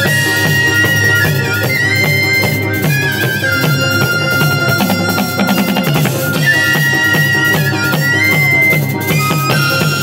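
Taepyeongso (Korean shawm) playing a loud, reedy melody of long held notes that step up and down in pitch, the same phrase played twice, over a fast, steady drum beat on a set of drums and a drum kit.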